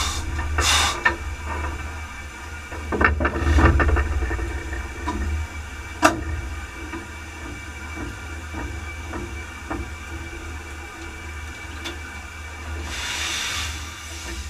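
Cab of the Peckett & Sons steam locomotive Ashington No.5: steam hisses shortly after the start and again near the end, over a steady low rumble. Between the two, a cluster of knocks comes around three to four seconds in and a single sharp knock about six seconds in.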